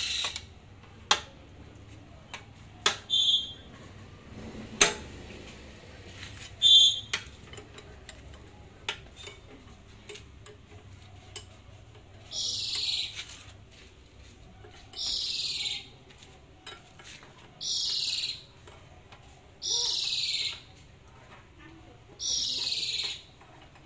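Steel tools clinking against the stacker's frame. Then a ratchet wrench tightening a bolt on the motor and battery tray, in five strokes: each a rasping run of clicks about a second long that drops in pitch, two to three seconds apart.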